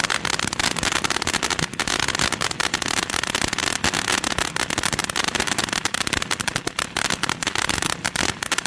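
Crackling firework fountain from a TNT Safari Bus 4-pack spraying, with dense rapid crackles over a steady hiss.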